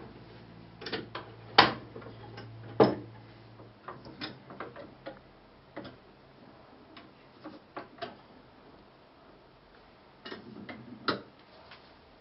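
Hand-lever tabletop linocut printing press being worked: an uneven run of clicks and knocks from its metal lever and frame. The two loudest knocks come about a second and a half and three seconds in, and another cluster comes near the end.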